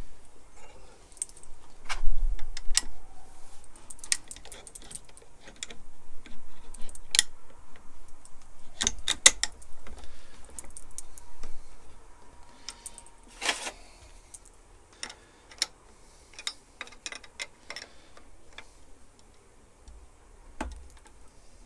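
Irregular metallic clicks, clinks and taps of a steel hand feed lever and its small linkage parts being handled and fitted on a lathe cross slide, with a few short clusters of rattling and quieter single clicks toward the end.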